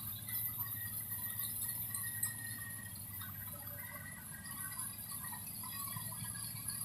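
Rice combine harvester running steadily: a constant low engine hum under a high, even hiss, with scattered light clinks and chirps on top.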